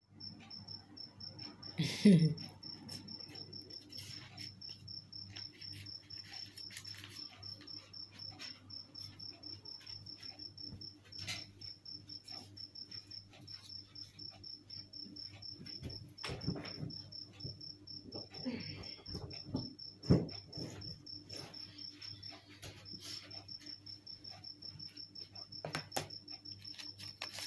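A cricket chirping in a steady, rapid, high-pitched trill that pauses briefly near the end, over a low steady hum. A few knocks and handling thumps break in, the loudest about two seconds in.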